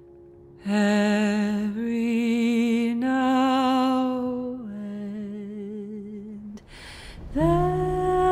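Soundtrack music: a wordless sung vocal line of slow, held notes with vibrato. It enters about a second in, and after a breath near the end it moves to a new, lower note.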